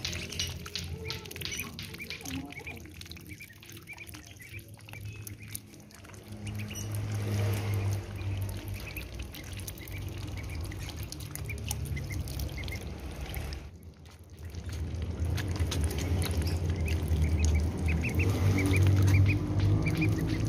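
Crested ducklings dabbling their bills in a shallow rainwater puddle: rapid wet clicks and slurps, with short peeping calls at the start and near the end. A low hum swells in the background about a third of the way in and again near the end.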